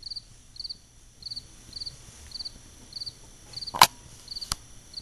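A cricket chirping steadily, short high chirps about two a second. A sharp click a little under four seconds in is the loudest sound, with a fainter click shortly after.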